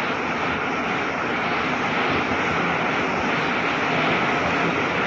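Steady crowd noise from a ballpark crowd, an even wash of many voices with no single sound standing out, heard through the narrow, hissy sound of an old radio broadcast recording.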